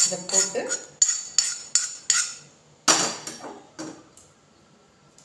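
A metal spoon clinking and scraping against a metal pan as crumbly Oreo biscuit and butter mix is knocked out of it: a quick run of clinks, then a single louder clank about three seconds in and a lighter one just after.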